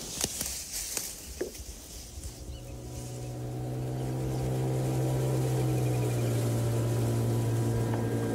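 Reed stalks crackling and snapping as they are pulled by hand. Then a steady engine hum fades in over a couple of seconds and holds an even pitch.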